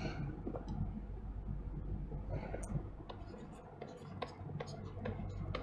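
Pen writing on a digital tablet: light ticks and scratches of the stylus as letters are written, over a low steady hum.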